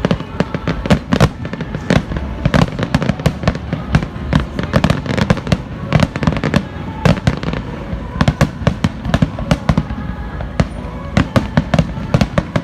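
Fireworks finale barrage: dense, rapid bangs and crackles of shells bursting, overlapping several times a second over a continuous low rumble, with music playing underneath.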